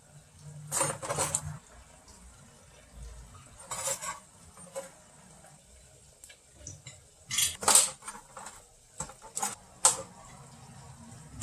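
Kitchen utensils and dishes clattering: a scatter of separate clinks and knocks at irregular intervals, the loudest about 7.5 to 8 seconds in.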